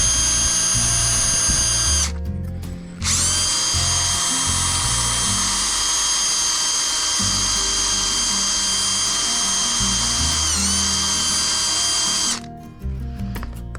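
Power drill running at a steady high-pitched whine as it spins a bore brush inside a carburetor float bowl to scrub out deposits. It stops for about a second near the start, restarts, dips briefly in pitch under load, and stops near the end.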